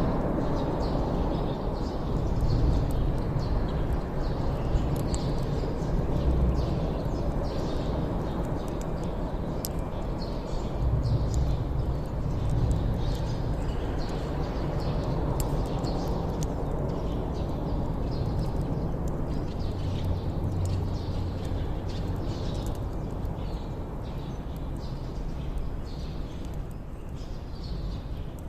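Wood campfire burning, crackling with scattered sharp pops over a low steady rumble.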